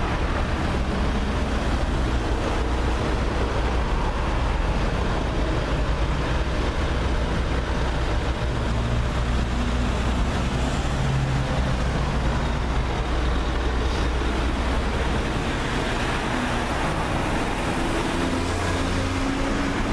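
Steady city street traffic noise: a constant rumble of road vehicles, with engines passing by now and then.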